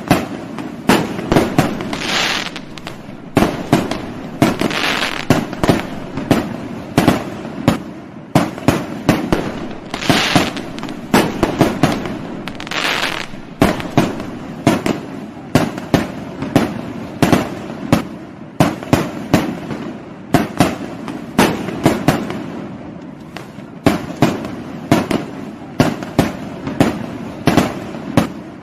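Fireworks going off: an irregular, rapid string of sharp bangs, with spells of hissing crackle among them.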